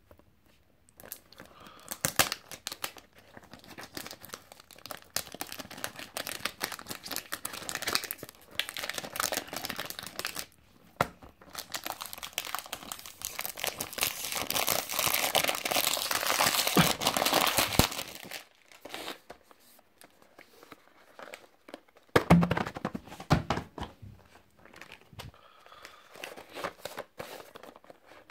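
Plastic wrapping and cardboard packaging of a cologne box crinkling and tearing as it is unwrapped, loudest in a long run of crinkling around the middle. A few sharp knocks come about three-quarters of the way through, followed by softer rustling.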